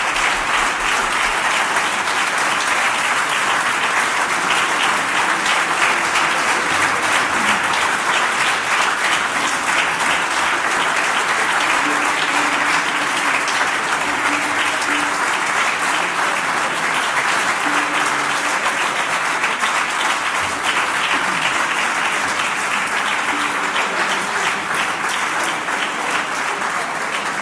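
Audience applauding, a long steady ovation of many hands clapping.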